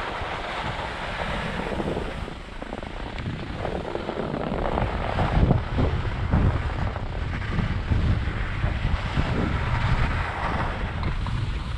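Skis sliding and turning over snow, with wind rumbling on the microphone.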